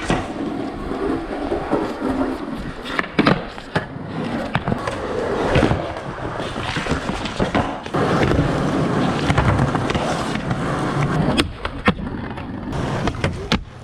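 Skateboard rolling over pavement with a steady wheel rumble, broken by a handful of sharp clacks as the tail pops and the board lands.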